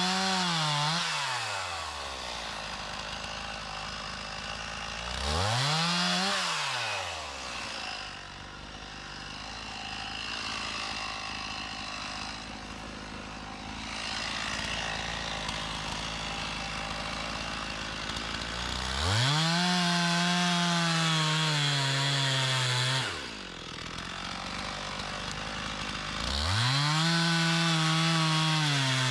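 Stihl MS 391 two-stroke chainsaw idling, revved briefly twice, then held at full throttle and cutting through wood twice, each cut lasting a few seconds. Its pitch sags as the chain bites in under load.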